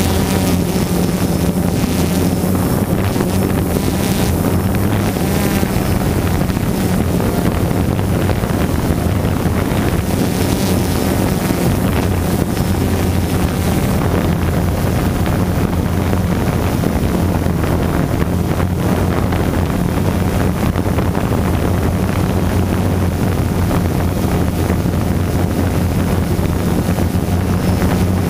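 Motors and propellers of a DJI quadcopter drone, heard from the camera mounted on the drone itself: a loud, steady hum with wind rushing over the microphone.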